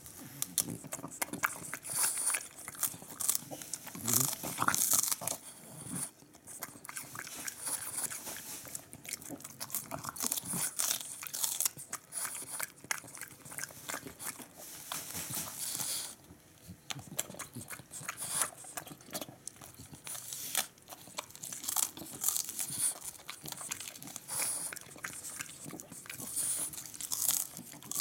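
French bulldog biting and chewing a raw napa cabbage leaf: a continuous run of irregular crunches, with a short lull about halfway through.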